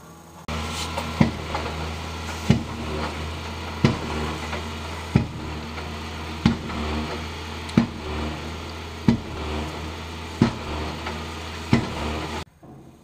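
Concrete-breaking machine pounding the street slab: nine heavy blows evenly spaced about 1.3 seconds apart, over its engine running steadily.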